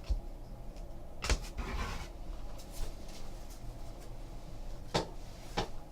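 Trading cards and packs being handled on a table: a handful of soft taps and knocks, with a short rustle about a second and a half in.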